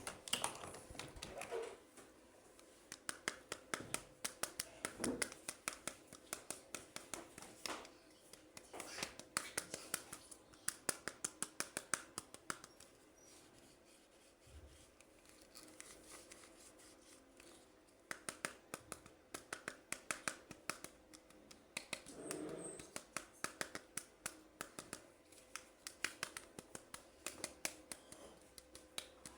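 Toy packaging and plastic being handled during an unboxing, with runs of quick, sharp snipping clicks several a second. There is a lull about halfway through.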